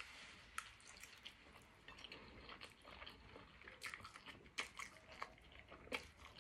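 Faint, close eating sounds: a person chewing and drawing in mouthfuls of instant noodles, with many small, irregular wet clicks and smacks of the mouth.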